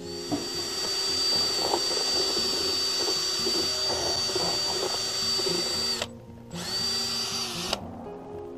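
Ryobi cordless drill with a paddle mixer stirring expansive demolition grout slurry in a plastic bucket, its motor giving a steady high whine. It winds down about six seconds in, then runs again for about a second and a half before stopping.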